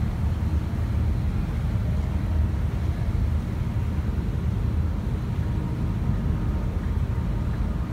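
Steady low rumble of a ship's engines as the vessel pulls away from the pier, with faint steady machinery tones above it.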